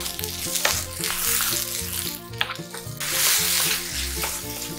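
Sliced eggplant, green peppers and shiitake mushrooms sizzling in a nonstick frying pan as a wooden spatula stirs them, with a couple of sharp taps of the spatula against the pan.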